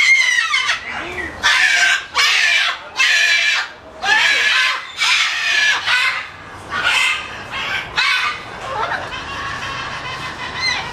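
Parrot squawking: a run of about ten loud, harsh calls, roughly one a second, dying down near the end.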